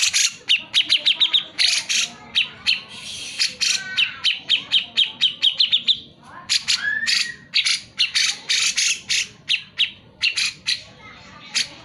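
Grey-cheeked bulbul (cucak jenggot) calling hard: loud harsh chattering calls mixed with fast runs of short, sharp notes at about eight a second, easing off near the end.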